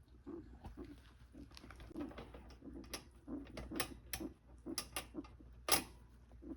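Guinea pig hooting with each breath: short, low hoots about two to three times a second, mixed with sharp clicks, the loudest near the end. The hooting is a sign of a respiratory blockage, which the owner says always clears with a cough.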